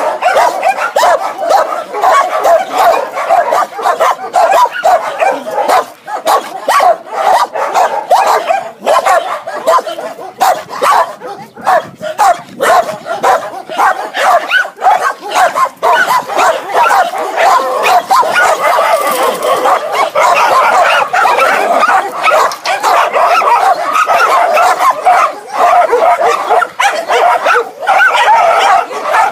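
Many dogs barking together: a dense, unbroken chorus of overlapping barks.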